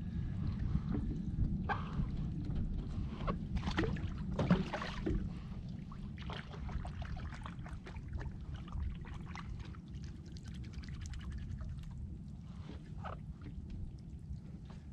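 Water sloshing and splashing around a small skiff over a steady low rumble, with several short splashes and knocks; the loudest comes about four and a half seconds in.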